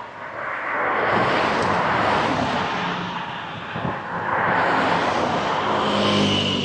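Traffic passing close by on a highway. Two vehicles go by one after the other, each a rising and then fading rush of engine and tyre noise.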